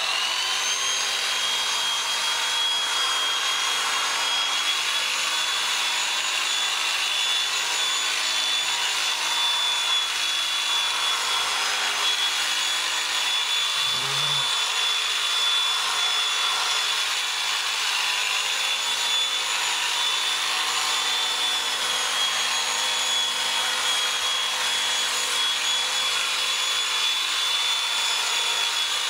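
Electric sheep-shearing handpiece switched on, its high whine climbing as it spins up and then holding steady while the cutter and comb run through the sheep's belly wool.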